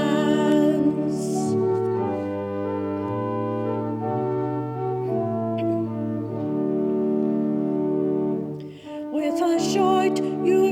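Church organ playing slow, sustained chords between hymn verses. Singing fades about a second in and starts again near the end.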